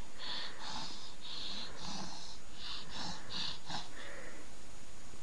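Sleeping shih tzu puppies breathing noisily in their sleep, with short hissing breaths about two or three a second.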